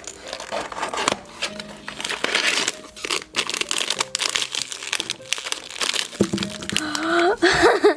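Crinkling and rustling of a blind-box mini figure's packaging as it is unwrapped by hand, in irregular rapid bursts.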